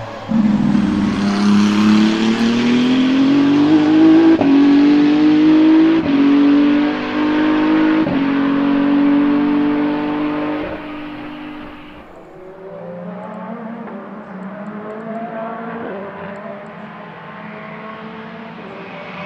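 Race car engine accelerating hard through the gears: the pitch climbs and drops back at each of about four upshifts. About twelve seconds in it falls to a quieter, lower, steadier note.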